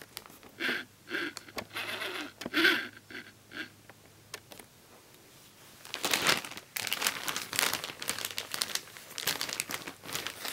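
Plastic bag crinkling as it is handled: a few short rustles in the first few seconds, then a longer, louder stretch of continuous crinkling in the second half.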